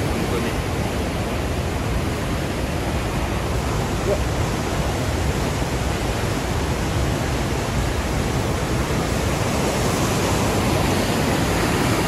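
Waterfall and river in spate, swollen and muddy with rain and snowmelt: the loud, steady rush of churning whitewater, a little louder near the end.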